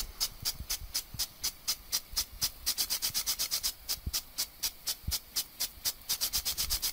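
Gardena Premium 8136 impulse sprinkler running: its spring-loaded impact arm snaps into the water jet in a steady, fast ticking, about seven ticks a second, with the hiss of the spray between the ticks.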